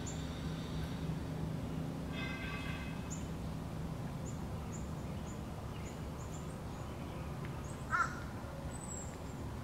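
Outdoor ambience with wild birds calling. There is a harsh call about two seconds in and a louder short call about eight seconds in, with a run of faint high chirps between them, all over a steady low hum.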